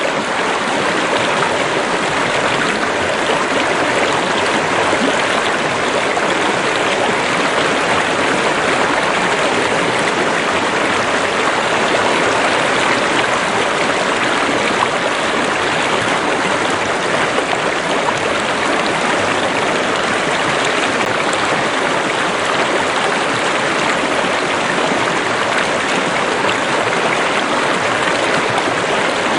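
Running water in a stream or river: a steady rush of flowing water.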